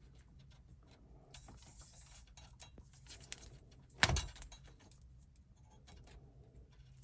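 Small clicks and rustling of car wiring being handled and wrapped with electrical tape, with one loud sharp knock about four seconds in.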